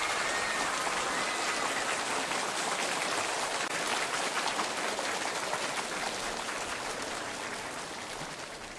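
Studio audience applauding, a dense crackle of many hands clapping that slowly dies away.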